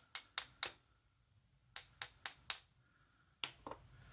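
Sharp taps from a vintage Yale padlock being knocked to shake its pins loose from the cylinder. They come in three quick runs: four taps, four more about two seconds in, then two near the end.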